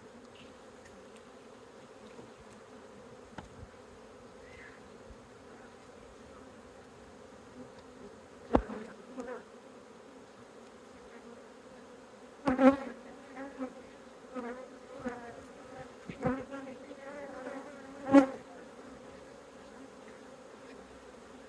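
Honeybees buzzing over an open hive, a steady hum. Several sharp knocks come from about eight seconds in, the loudest near the end.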